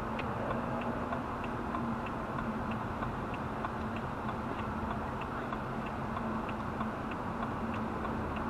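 A car's turn-signal indicator ticking at an even beat of about three clicks a second inside the cabin, over steady engine and road noise.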